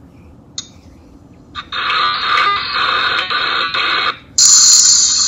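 Loud, harsh hissing noise over a video-chat call. It cuts in about a second and a half in, drops out briefly near four seconds, then comes back higher and shriller.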